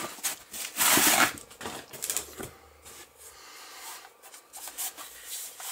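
A thin plastic protective wrap rustles and crinkles as it is pulled off a speaker. The rustle is loudest about a second in, then softer handling rustles and light ticks follow.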